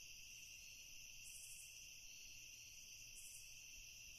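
Near silence with a faint, steady chirring of crickets.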